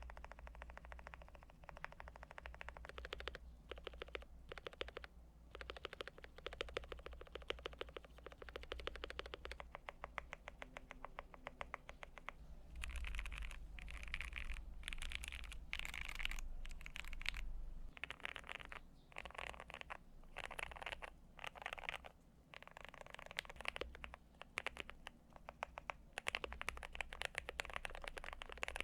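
Typing on a Cyberboard mechanical keyboard with lubed and filmed Aquaking switches and GMK keycaps: fast runs of key clacks in bursts, broken by short pauses, the bursts brighter from about halfway on.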